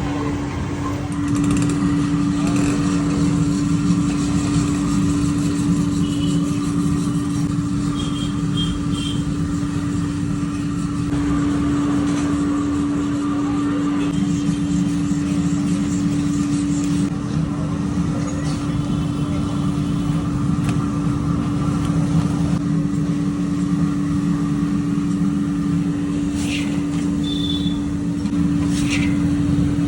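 A motor-driven machine running with a steady, unchanging hum, with a couple of short sharp clinks near the end.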